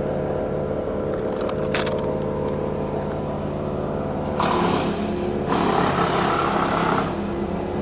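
Crane engine running steadily, then revving up about halfway through for a couple of seconds before settling back. A few light clicks come early on.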